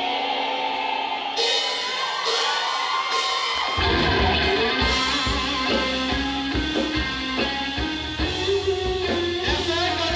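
A male singer singing a Thai pop-rock song with a band. Drums and bass come in with a steady beat after a quieter opening of almost four seconds.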